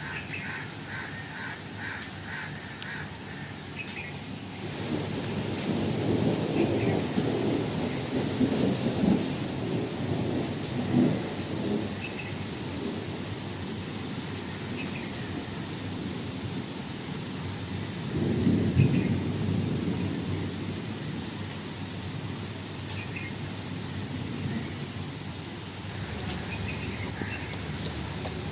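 Steady rain with two long, low rumbles, one from about five seconds in and another around eighteen seconds, and a few short bird chirps scattered through it.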